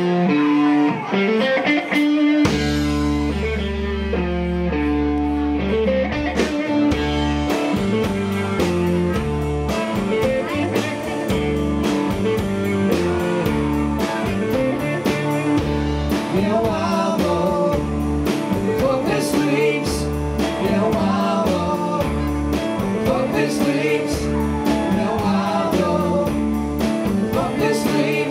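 A live rock band playing a slow blues-tinged song on electric bass, electric guitars and drum kit, with a man singing. The drums settle into a steady beat about seven seconds in.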